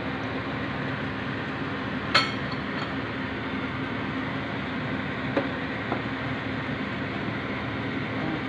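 Kitchen cooking scene with a steady low hum and hiss throughout. About two seconds in a utensil strikes the stainless steel pot in one sharp clink, followed by a couple of lighter taps.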